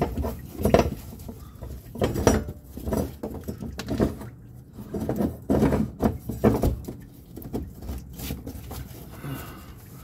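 Metal fuel-tank lock ring and fuel pump module being handled and worked into place by gloved hands: irregular light knocks, clinks and rubbing.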